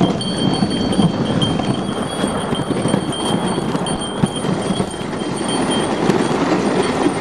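Dog sled gliding along a hard-packed snow trail: a steady, rough scraping rush from the runners, with a faint steady high whine above it.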